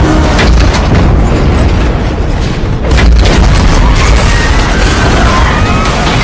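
Movie disaster sound effects: a heavy, continuous rumble of crashing water and debris with repeated sharp crashing impacts as a tsunami wave and container ship smash into a suspension bridge, dramatic film music beneath.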